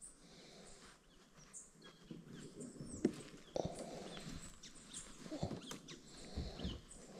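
Faint handling noise of hands threading a soft plastic fluke bait onto a fishing hook: scattered small clicks, taps and rustles, with a couple of sharper knocks around three seconds in.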